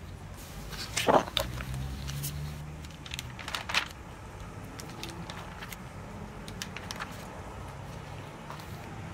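Paper rustling and crinkling as the pages and loose pasted-in sheets of a spiral-bound Maruman Croquis sketchbook are handled and turned, with the loudest rustle about a second in and a cluster of crisp ticks a little later. A low steady hum runs underneath.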